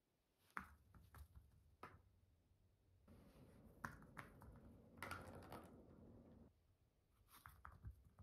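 Faint, scattered light taps and clicks, with a soft rolling rustle in the middle: a small plastic ball batted by a cat's paw and rolling across carpet tiles and foam floor mats.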